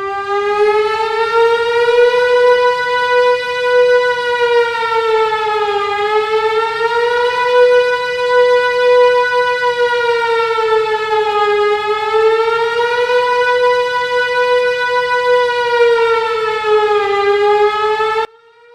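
Siren alarm wailing, its pitch slowly rising and falling about every five to six seconds, then cutting off suddenly near the end.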